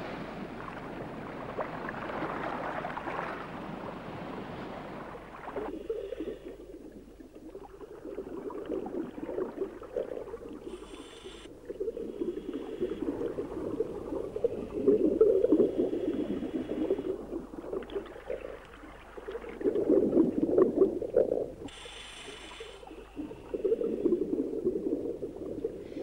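Scuba diver breathing underwater through a regulator: long bubbling exhalations, broken twice by a brief hiss of inhalation about eleven seconds apart. It is preceded by a few seconds of even rushing noise.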